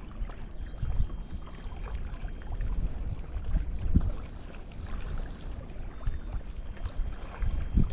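Wind rumbling on the microphone over water moving around a kayak, with a few soft low knocks, one about a second in and a louder one around four seconds in.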